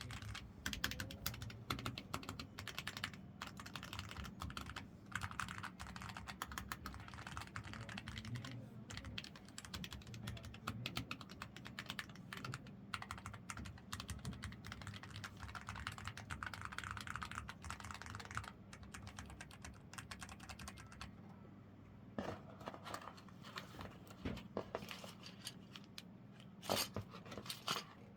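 Typing on a NuPhy Air60 HE low-profile keyboard with Jade Pro magnetic switches: rapid, steady key clicks for about the first eighteen seconds, then slower, scattered keystrokes.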